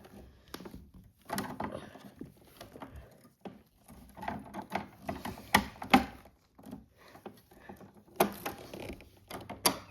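Toy barn pieces being handled and pushed together: irregular clicks, knocks and scrapes as a part is forced into place, with a few sharper knocks around the middle and near the end.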